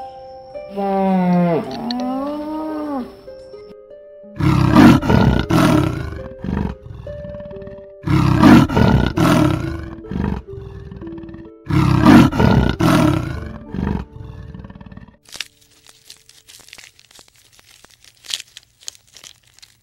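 A large animal roars three times, each roar about two seconds long and a few seconds apart, over soft background music. Before the roars comes one long call that rises and falls in pitch.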